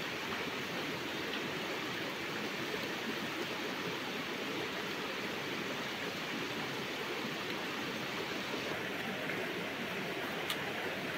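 Steady rush of flowing river water, an even wash of noise, with one brief click near the end.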